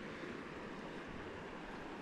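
River water flowing: a steady, even rushing hiss.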